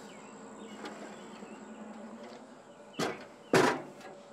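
Two sharp clunks about three seconds in, half a second apart, as the heavy all-metal circular saw and its steel carrying case are handled. A steady high insect drone runs underneath.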